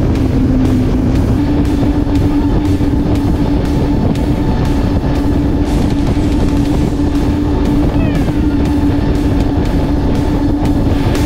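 Sport-fishing boat running at speed on its Mercury Racing outboards: a steady engine drone over rushing water, spray and wind, with music playing underneath. The engine note steps up slightly about a second in.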